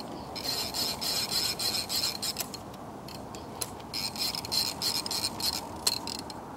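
Casting fishing reel ratcheting in two rasping bursts of about two seconds each, as a hooked sturgeon fights heavy line. A steady low rushing noise runs underneath.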